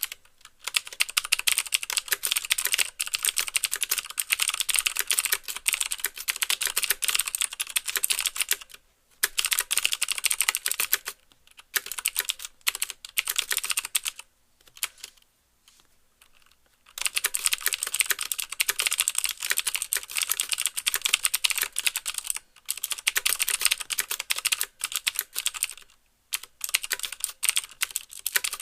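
Fast typing on a CM Storm QuickFire Stealth mechanical keyboard with clicky Cherry MX Blue switches: each stroke gives the switch's click plus a clack as the keys bottom out. The typing comes in rapid runs broken by short pauses, with one longer pause of about two seconds around the middle.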